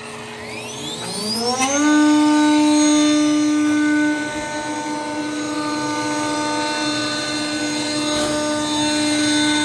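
CNC router spindle spinning up with a fret-slotting bit, its whine rising in pitch for about two seconds, then running at a steady high whine.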